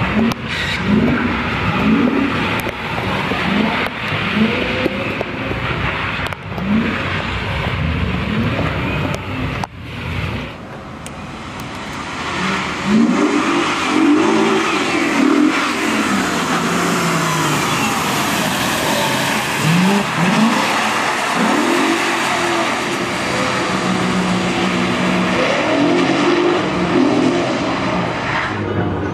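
BMW 4.0-litre V8 in a Mazda RX-8 revving hard through the gears, its pitch rising and falling again and again as it accelerates, shifts and lifts off. There is a break about ten seconds in. After it the car comes close, with tyres hissing on the wet road as it passes.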